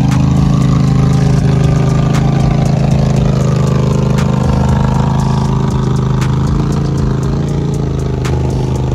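ATV engine running at steady revs, a loud, even drone, with scattered sharp clicks over it.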